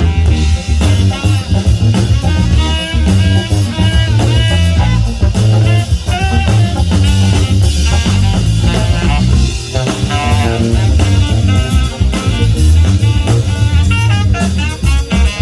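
Live band playing loud amplified music: guitar notes, some of them bent, over bass and a drum kit.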